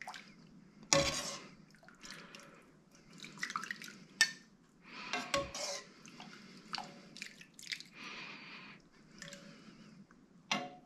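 Miso soup being ladled from a stainless saucepan into a bowl: liquid pouring and dripping, with the metal ladle clinking against the pot several times.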